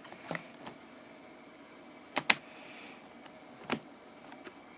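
Plastic clicks and knocks of a replacement laptop battery being lined up and snapped into an HP laptop's battery bay. The loudest is a quick double click about two seconds in, with another single click a second and a half later and faint ticks between.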